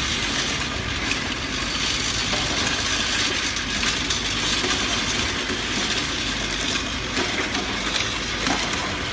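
30 ml cough syrup filling and ROPP capping machine running, at about 200 bottles a minute: a steady mechanical clatter with continuous, rapid clinking of small bottles against each other and the machine parts.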